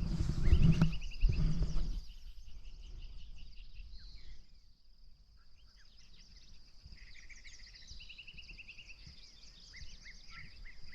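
Close rustling and handling noise for about two seconds, then birds singing: a short trill repeated several times over a steady high-pitched hum.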